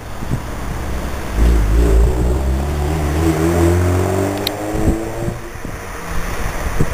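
A vehicle's motor accelerating, a hum that rises slowly in pitch for about four seconds, with low rumble and wind noise on the microphone.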